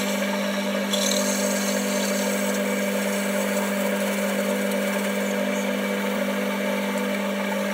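Metal lathe running steadily while a 3/8-inch drill bores into the end of a jaw-screw blank: an even motor hum with a whine and cutting hiss.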